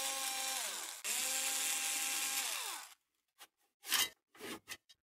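Ryobi cordless screwdriver motor whirring in two runs, about a second and about two seconds long, its pitch dropping as each run winds down while it backs out the drive-bay screws. After that come a few light clicks and rattles of the metal drive bay being handled.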